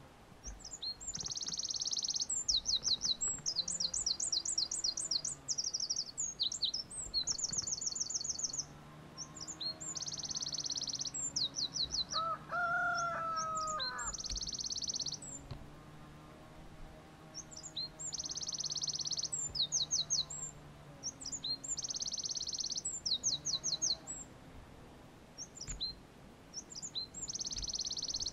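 Eurasian wren singing: high, fast song phrases of rapid trills and rattles, repeated every few seconds with short pauses between them.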